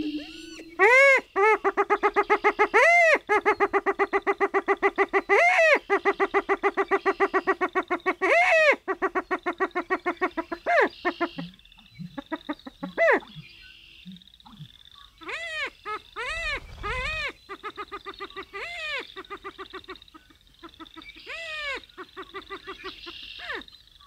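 Greater prairie-chickens calling on a lek: a fast stuttering chatter with loud calls that rise and fall in pitch every two or three seconds, louder in the first half.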